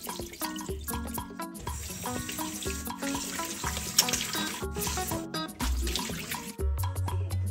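Tap water running into a steel bowl of raw meat in a stainless-steel sink, with hands rubbing and swishing the meat as it is rinsed. Background music with a steady beat plays throughout.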